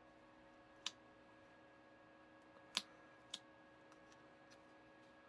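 Three short clicks of a small plastic spatula against a thin plastic cookie mold as dough is pressed and levelled in it, about a second in and twice close together near three seconds; between them near silence with a steady faint hum.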